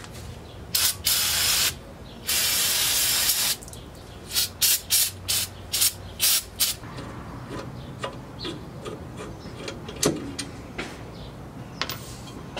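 Aerosol brake cleaner sprayed in bursts onto a car's rear brake caliper and hub: a few longer hisses, then a quick run of short squirts that stop about 7 seconds in. After that, a few light knocks and clicks as the caliper and pads are handled.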